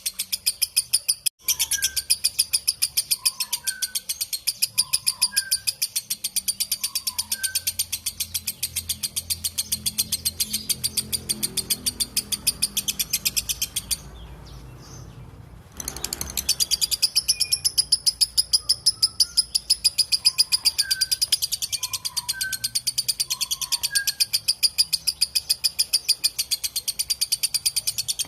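Lovebird in a long 'ngekek' chatter: a fast, evenly paced run of high, sharp chirps. It breaks off for about two seconds just past halfway, then picks up again at the same pace.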